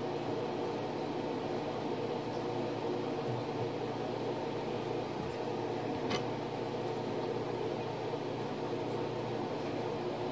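Steady mechanical hum of a running motor or fan, with one short click about six seconds in.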